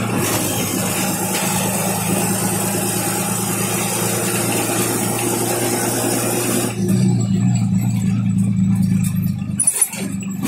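MSRTC bus's diesel engine running under way, heard from inside the cabin together with road noise. About seven seconds in, the broad noise drops and a steady low hum takes over.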